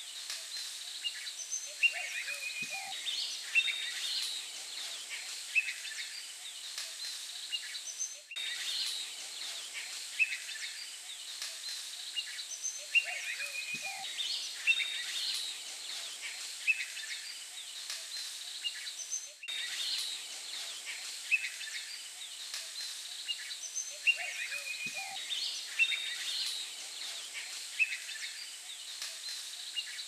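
Countryside ambience of assorted small birds chirping and calling, over a steady high insect-like whine. The same stretch of about eleven seconds repeats, with a brief dropout at each join.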